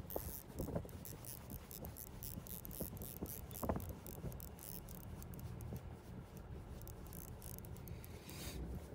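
Fishing reel being cranked, a fast run of mechanical clicks from its gears, over a steady low rumble of boat and wind, with a few louder knocks.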